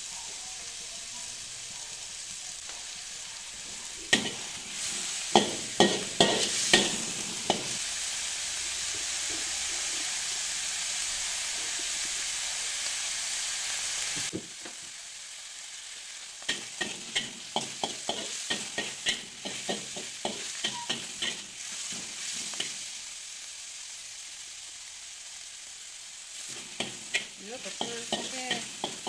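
Chopped salted mustard greens and ground pork sizzling in a wok, with bursts of clicking and scraping as a metal spatula stirs them against the pan. The sizzle is louder in the first half and drops off suddenly about halfway through.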